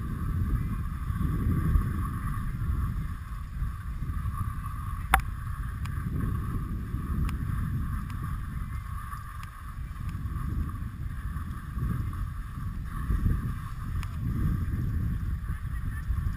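Skis sliding over packed snow while towed up a Poma button lift, with wind rumbling on the microphone in uneven gusts. A single sharp click about five seconds in.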